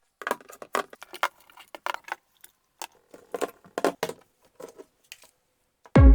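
Irregular sharp clicks and clatters of small hard parts being handled, some ringing briefly, with a quiet spell in the middle.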